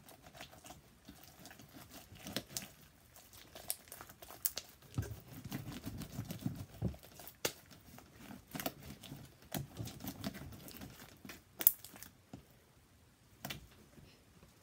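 Sticky slime, made stickier with added body wash, being kneaded and pressed against a tabletop by hand: irregular wet clicks, pops and crackles as it sticks and pulls away, with soft squishing stretches in the middle and one sharper snap late on.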